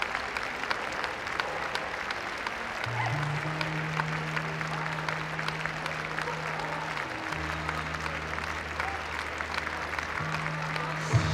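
An audience applauding steadily, with music playing along; low sustained bass notes come in about three seconds in and change pitch a few times.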